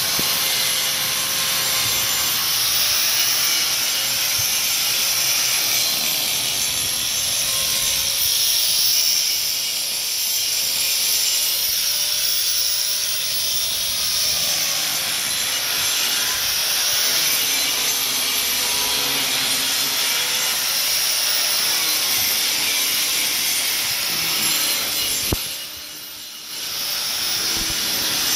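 Handheld electric grinder cutting engraved lines into a concrete slab: gritty grinding noise under a motor whine whose pitch wavers as the wheel is pushed along the cut. About 25 seconds in it drops away for a second or two, then picks up again.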